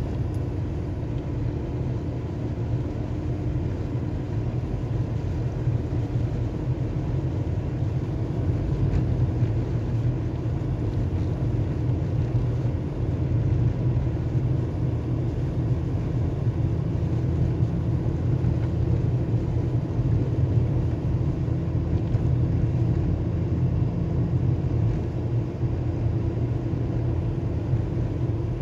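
Cabin noise of a Volkswagen Golf IV driving on a snow-covered road: a steady low rumble of engine and tyres.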